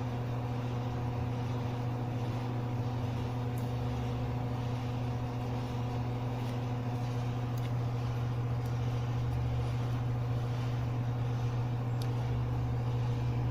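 Steady low machine hum with a constant pitch, and a few faint clicks over it.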